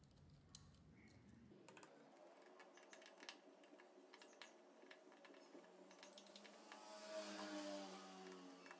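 Very faint small clicks and ticks of a precision screwdriver working the screws out of a phone's plastic back housing, with a slightly louder stretch about seven seconds in.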